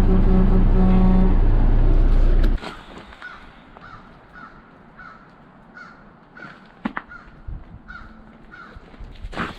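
Plow truck's engine running steadily, stopping abruptly about two and a half seconds in. Then a short high call repeats about twice a second, with a few faint clicks.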